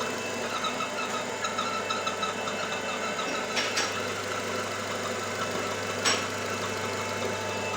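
Nissan Terrano engine idling with a quick, repeating squeak over it. The mechanic traces the squeak to the crankcase ventilation (PCV) valve: it stops when the dipstick is pulled and vacuum builds. Two sharp clicks come about three and a half and six seconds in.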